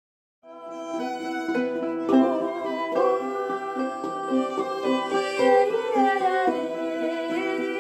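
Acoustic string music: a violin playing a melody, with sliding notes, over plucked guitar-like accompaniment. It begins about half a second in, after a moment of silence.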